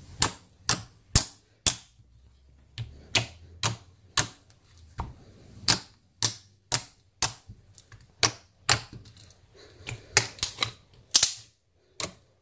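Stiff white slime mixed with EVA foam clay flakes being pressed and squeezed by fingers, giving a string of sharp, crisp clicks and pops, about two a second.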